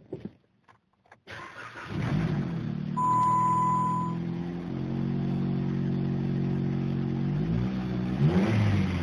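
Jeep Compass engine cranking and catching about a second and a half in, then idling steadily. A single electronic warning chime sounds briefly just after it starts.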